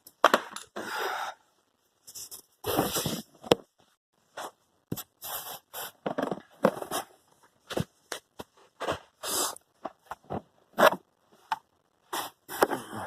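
Hand tools and metal fasteners clicking and scraping in irregular short bursts while 7 mm bolts are worked on the blower motor of a 1998–2002 Camaro/Firebird.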